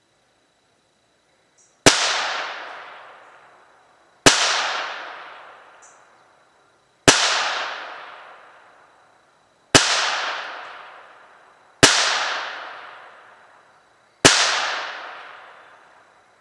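Ruger Mark III .22 LR pistol fired six times in slow, aimed succession, a shot every two to three seconds. Each sharp crack trails off over about two seconds.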